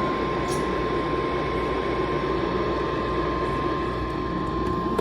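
A steady, unwavering emergency alert attention tone sounding continuously under heavy, even radio static, as a weather alert broadcast begins.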